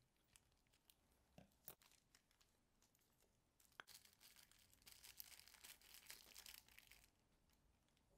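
Faint crinkling of a thin plastic packet holding a Seiko replacement watch crystal as it is snipped open with scissors and pulled apart by gloved fingers: a few light clicks first, then a stretch of crinkling from about four to seven seconds in.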